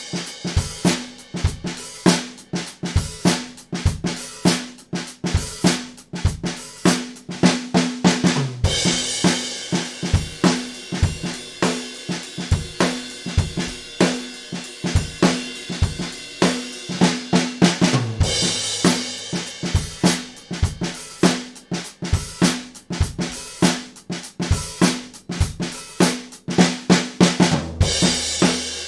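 Acoustic drum kit played in a steady rock groove of bass drum, snare and hi-hat, with a crash cymbal and a low drum note hit together about every nine to ten seconds to start each phrase.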